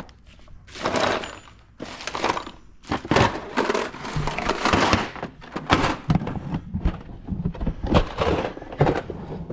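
Rummaging through a drawer of spare reloading-press parts: packages rustling and small parts clattering and knocking in irregular bursts.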